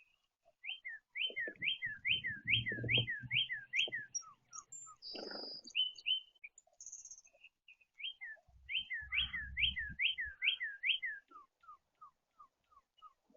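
A songbird sings two phrases of quick, repeated whistled notes that slur downward, about two or three a second, the second phrase trailing into a slower, lower series near the end. Dull low thumps and rumble sound under both phrases.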